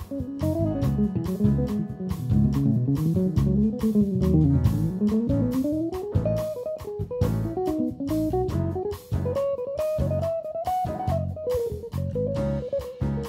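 Jazz guitar solo over bass: fast runs of single plucked notes that climb and fall.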